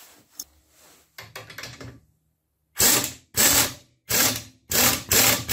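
Pneumatic impact wrench hammering in five short bursts, about half a second each, as it snugs up the nuts on the plow mount plate bolts. A few faint clicks come before the bursts.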